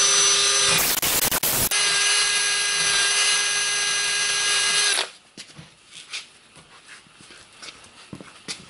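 Small power tool running at a steady whine while the brake mounting surfaces are cleaned up; about a second in it turns rougher and noisier for about a second, then runs steady again and stops about five seconds in, followed by light clicks of handling.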